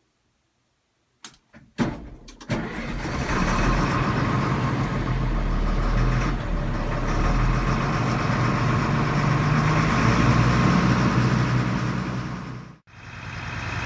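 Diesel engine of an FMTV military truck starting up, heard from inside the soundproofed cab: a couple of clicks, a brief crank, then it catches and runs steadily. The sound cuts out briefly near the end.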